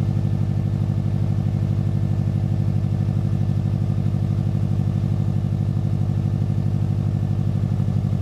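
2005 Subaru WRX's turbocharged flat-four idling steadily on a cold start through a freshly fitted Invidia N1 turboback exhaust, an even, pulsing rumble at the tailpipe. The O2 sensor port in the new downpipe is still open, so the exhaust has a leak.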